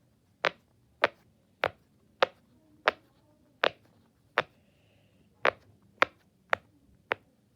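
Silicone pop-it fidget toy being pressed bubble by bubble, about eleven separate sharp pops at an unhurried pace of roughly one every half second or so.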